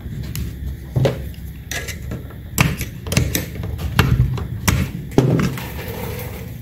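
Metal clicks, taps and knocks from a parking-brake pedal assembly being handled while its brake cable and clevis are fitted, with a dozen or so sharp knocks scattered throughout.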